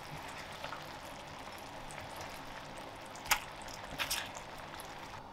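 Cream sauce simmering and bubbling in a steel skillet. A sharp metal clink about three seconds in and a few clatters just after four seconds come from tongs and a slotted spoon working the pan as rigatoni drops into the sauce. Near the end the sound falls away to quiet room tone.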